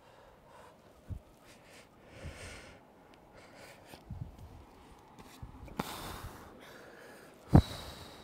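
A rock climber breathing hard through the nose while under strain on a lead climb, with a few sharp exhalations; the loudest, short and forceful, comes about a second before the end.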